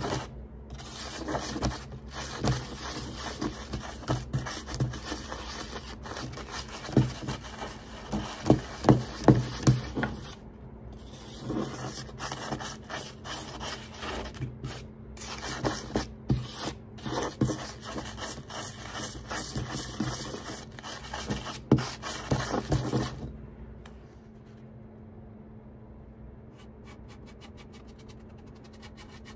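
A glass muller grinding pigment on a glass plate: a gritty glass-on-glass scraping in repeated strokes, about two a second at the busiest, that stops about three-quarters of the way through.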